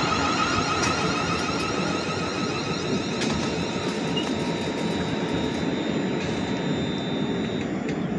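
A train running past on the line: a steady rumble with a high whine and occasional sharp clicks, easing off a little over the seconds.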